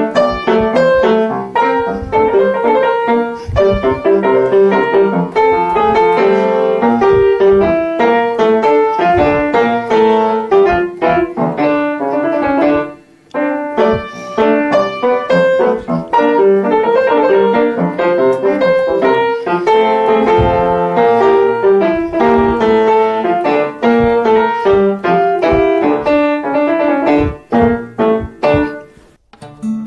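Upright piano played in a brisk, busy stream of notes, with a short pause about halfway through and another dip near the end.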